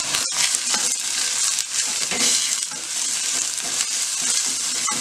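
Chopped onion, crushed garlic and grated ginger sizzling in hot oil in a stainless steel kadai, stirred with a wooden spatula in repeated strokes that scrape across the pan.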